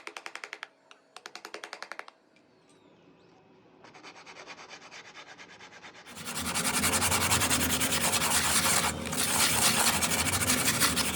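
Sanding of carved MDF, with rapid scratchy strokes. Two short bursts come in the first two seconds, then after a pause the sanding builds up and runs loud and continuous from about six seconds in, with a brief break near nine seconds.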